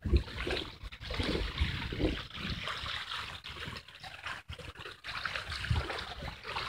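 Sea water lapping at shore rocks and trickling back off them in small, irregular washes.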